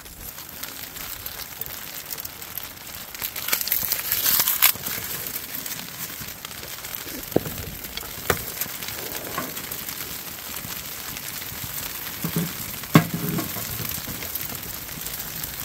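Freshly lit birch bark and kindling crackling and hissing in a small sheet-metal wood stove, with a louder burst of crackling about four seconds in. A few sharp knocks come through, the loudest near the end as a hand works at the open stove door.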